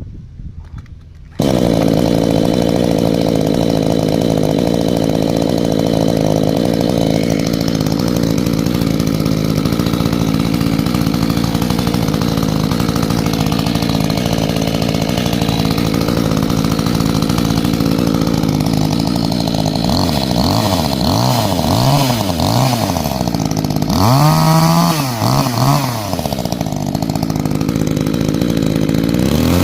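Makita EA3110T top-handle chainsaw's small two-stroke engine running at a steady speed, loud after a quieter first second. From about 20 seconds in it is revved up and down several times, the pitch rising and falling, then it settles back to steady running.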